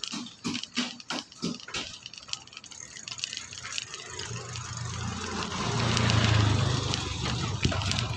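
A motorcycle engine approaching, its low steady hum coming in about halfway through and growing louder. It is preceded by a quick, regular ticking, about four ticks a second.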